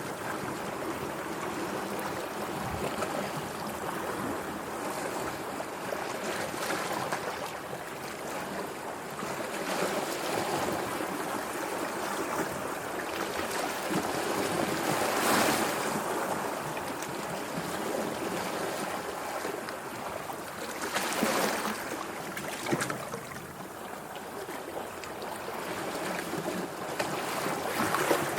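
Sea waves washing in a continuous rush, swelling louder about halfway through and again around three quarters of the way in.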